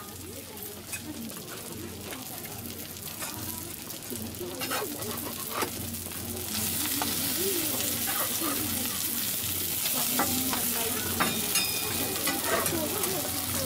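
Okonomiyaki (cabbage pancakes) sizzling on a flat iron griddle, with metal spatulas scraping and clacking on the plate as they are turned over. The sizzle gets louder about halfway through, as the pancakes are flipped.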